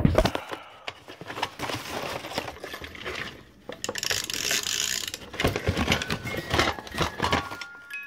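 Clattering, rustling and clicking of a vintage Christmas door chime and its pull cord being handled, with the first pure melody notes of the chime starting near the end.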